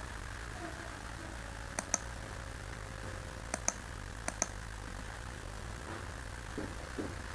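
Computer mouse button clicking: three quick pairs of sharp clicks, about two, three and a half and four and a half seconds in, over a steady low hum.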